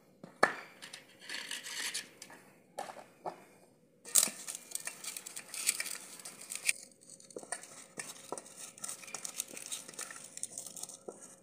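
Hands mixing and kneading a soft mashed potato and paneer kofta mixture in a stainless-steel bowl: squishing and rustling, with scattered clicks and knocks of the steel bowl, the loudest about half a second in.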